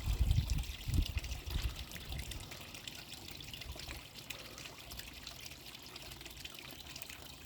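Small garden-pond waterfall splashing and trickling steadily. A few low bumps in the first couple of seconds.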